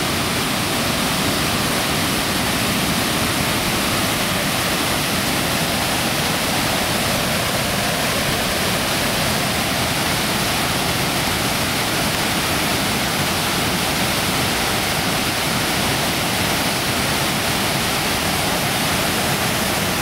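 Waterfall: water pouring over rock in a steady, unbroken rush.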